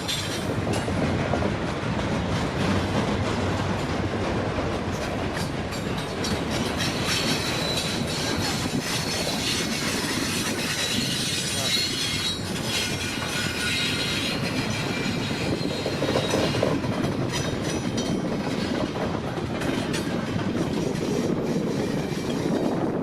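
Cars of a long freight container train rolling steadily past on their steel wheels, with a thin high wheel squeal in the middle.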